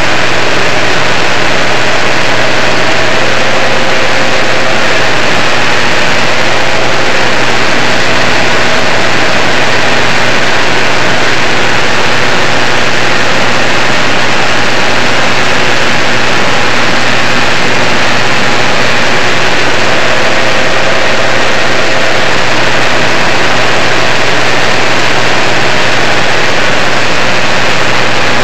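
Small single-engine propeller aircraft's engine and propeller heard from inside the cabin: a very loud, unchanging drone with a steady low hum.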